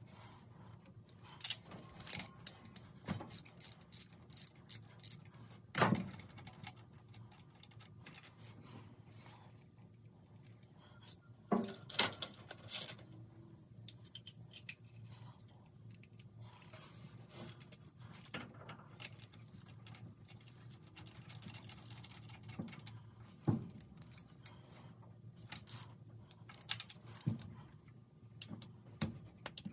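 Metal hand tools and engine parts being handled while spark plugs and plug wires are worked on: scattered clinks and clicks with a few sharper knocks, the loudest about 6 and 12 seconds in, and a run of small rapid clicks near the end.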